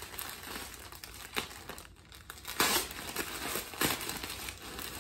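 Clear plastic packaging bag crinkling as it is handled, in irregular rustles, the loudest a little past halfway.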